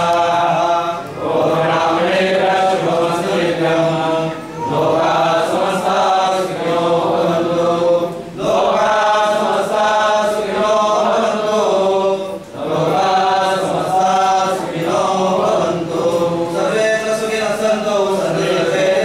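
Voices chanting Hindu ritual mantras in unison, in long even-pitched phrases with short breath pauses every few seconds.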